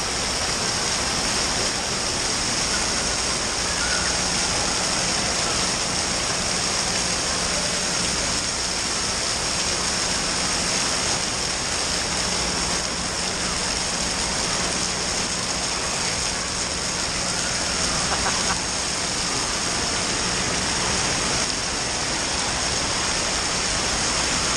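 Steady rush of falling and splashing water from an indoor water park's water features, even and unbroken.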